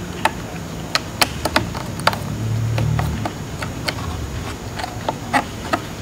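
Light, irregular clicks and taps of fingers pressing a thin cover sheet back down over laptop memory modules, about a dozen small clicks over a faint low hum.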